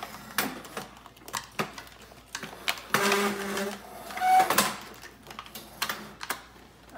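Plastic toy packaging crinkling and crackling as it is handled and pulled at by hand, with irregular clicks and rustles. A denser, louder bout of crackling runs from about three to four and a half seconds in.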